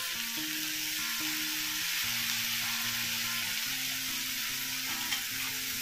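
Onion-tomato masala frying in oil in a stainless steel kadhai, a steady sizzle, as dried baby prawns are added by hand. Soft background music notes play underneath.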